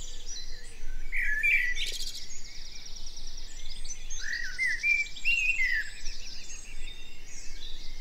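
Several garden songbirds singing together: short whistled phrases that rise and fall recur throughout, with a fast high trill from about two seconds in.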